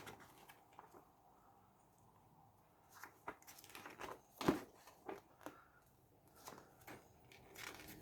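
Paper and card being handled: faint rustling with scattered short clicks and soft knocks, the loudest about four and a half seconds in.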